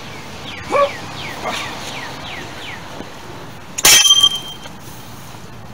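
A half-inch-drive breaker bar, stood on to loosen a seized lug nut, gives way with one loud metallic crack and ring about four seconds in as a piece of it breaks off. Before that, a bird calls a quick series of falling chirps.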